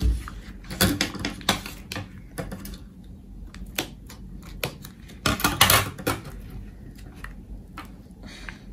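Scissors cutting into a cardboard Pringles tube used as a soap mould: a run of sharp snips, clicks and crackles of the tube wall giving way, densest a little over five seconds in. A knock at the very start as the can is handled on the table.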